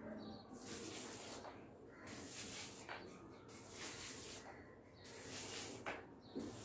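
Paint roller being worked up and down a wall, spreading textured paint. Each stroke gives a soft rasping hiss, about one a second.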